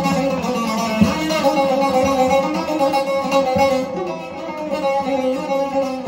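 Bağlama (long-necked Turkish saz) played solo: single plucked notes that ring on, in a free improvisation in makam Nihavend, a little softer around four seconds in.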